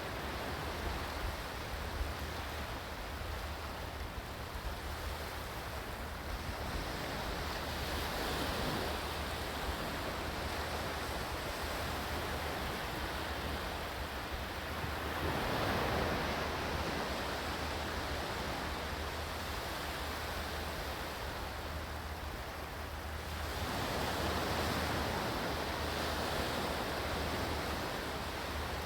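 Ocean waves washing in: a steady rush of surf that swells three times, about every eight seconds.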